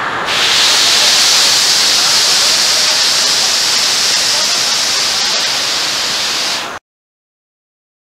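A large waterfall pounding into its plunge pool: a loud, steady rush of water. The sound turns brighter and hissier a moment in, then cuts off suddenly to silence near the end.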